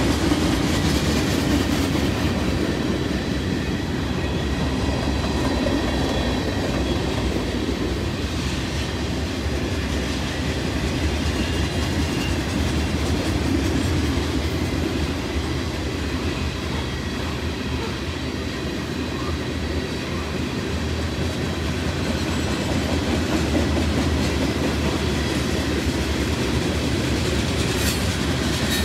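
Freight train cars rolling past in a steady rumble of steel wheels on rail, with faint thin high squeals from the wheels.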